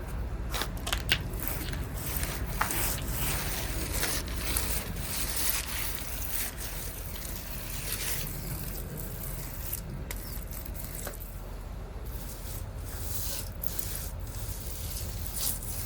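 Repeated rubbing and scraping strokes of a hand tool working over freshly applied pool patch compound on a pebble-finish spa surface.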